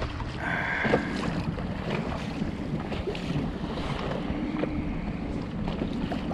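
Wind buffeting the microphone over choppy sea water around a small inflatable boat. A low steady hum comes in about four seconds in.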